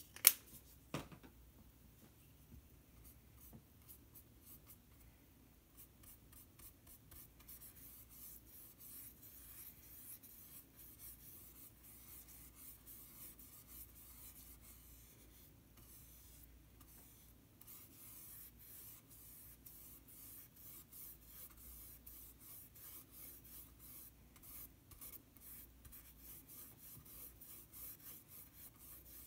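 Paintbrush strokes: a fast, faint run of scratchy brushing and scrubbing strokes on the painting surface. It begins with two sharp taps in the first second, the first the loudest.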